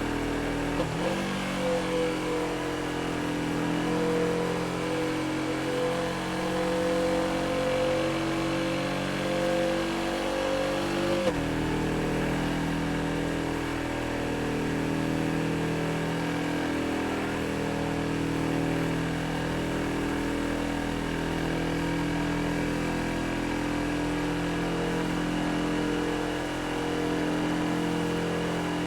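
Yamaha XSR700's 689 cc parallel-twin engine running steadily. It holds a higher, steady note from about a second in until about eleven seconds, then drops abruptly to a lower, slightly wavering steady note.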